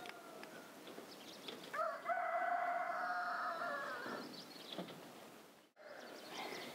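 A rooster crowing: one long crow, rising briefly and then held for about two seconds, starting about two seconds in, with the fading end of a fainter crow at the start.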